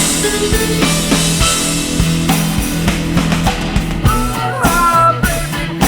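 Rock band playing an instrumental passage: a drum kit keeping a steady beat under sustained bass and chord notes, with a wavering lead melody coming in about four seconds in.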